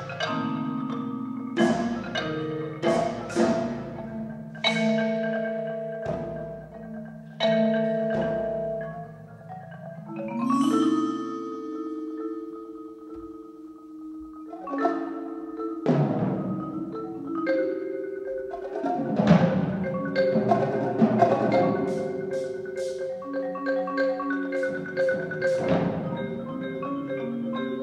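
Marimba One marimba played with mallets as a concert solo, backed by a percussion ensemble. Loud struck accents leave ringing tones, and there is a dense run of rapid notes about twenty seconds in.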